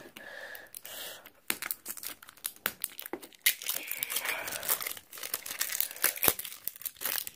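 Crinkling and rustling of plastic wrapping with many small clicks and taps as a plastic Captivz toy egg is handled and unpacked by hand, with one sharper click about six seconds in.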